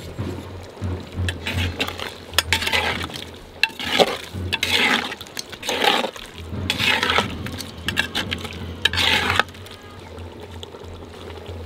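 A utensil stirring thick curry in an earthenware pot: a run of scraping, sloshing strokes with a few clinks, from about two seconds in until near the end.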